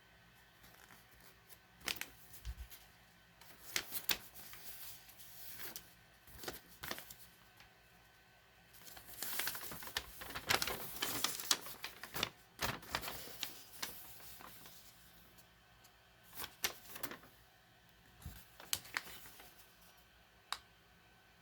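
Handling noise from a Vigilante Z-700 smoke alarm: scattered clicks and taps of its plastic case, with a busier stretch of scraping and rattling around the middle.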